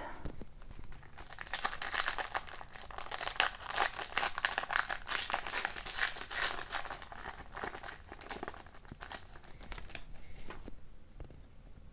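Foil wrapper of a trading-card pack being torn open and crinkled by hand, a dense crackling that dies down a couple of seconds before the end.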